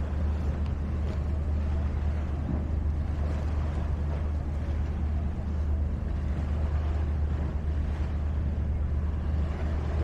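A steady low engine drone under a continuous wash of noise, with no breaks or changes.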